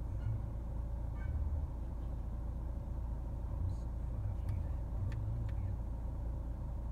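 Steady low rumble inside the cabin of a Nissan Qashqai J11, with a few faint ticks from fingers tapping the infotainment touchscreen and buttons.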